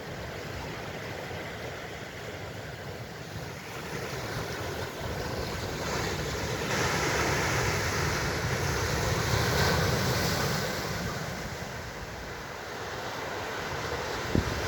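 Ocean surf washing against the shore, swelling to a louder wave about halfway through and then easing off, with wind rumbling on the microphone. Two short knocks near the end.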